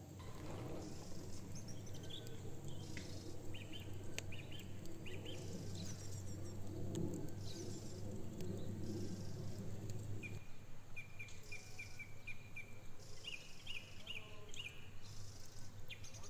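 Small birds chirping, with a quick run of repeated chirps in the second half, over a steady low background noise that cuts off about ten seconds in.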